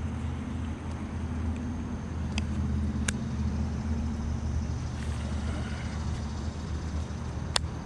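A steady low engine-like hum, with a few sharp clicks.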